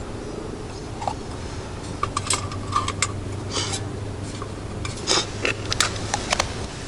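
Light clinking, scraping and rattling of small hard objects being handled, a dozen or so sharp clicks, over a steady low hum.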